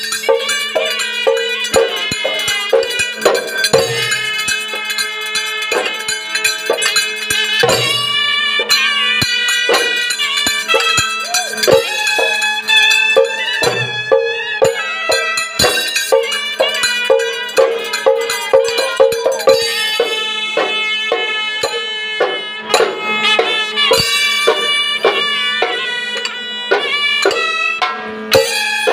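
Folk music in adi tala, an eight-beat cycle: a shehnai-type reed pipe plays a bending melody over beaten double-headed barrel drums and rapid clashing of small hand cymbals, with a few deep drum strokes.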